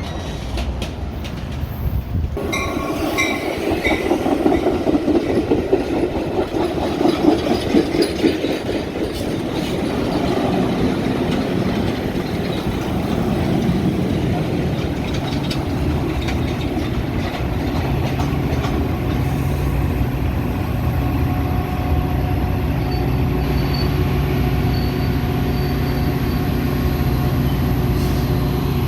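Metra commuter train running on the rails, wheels clattering over the track. The sound grows louder about two seconds in, and from about halfway a steady low drone settles under it.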